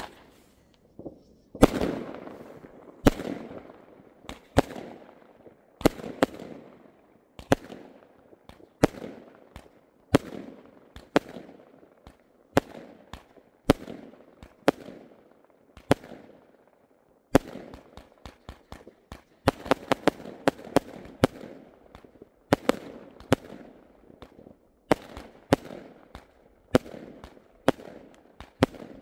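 Aerial fireworks going off overhead: a steady run of sharp bangs about once a second, each followed by a rolling echo. There is a quicker patter of cracks past the middle.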